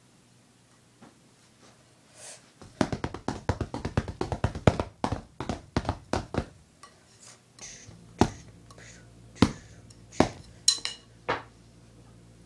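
Wooden drumsticks tapping: a fast run of sharp clicks for about four seconds, then a handful of single knocks, one with a brief ringing tone.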